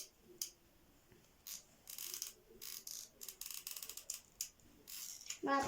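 Light, irregular clicks and rattles from hand-work at a craft table: a hot glue gun and a small toy motorcycle being handled while the toy is glued onto a wooden magnet.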